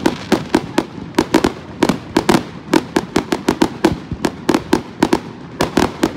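Fireworks going off in quick succession: a dense run of sharp bangs and crackles, several a second.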